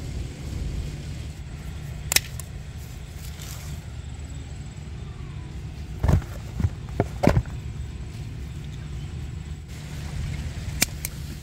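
Eggplant picking among the plants: a few sharp clicks and knocks, one about two seconds in, a quick cluster of four around six to seven seconds, and two more near the end, over a steady low outdoor rumble.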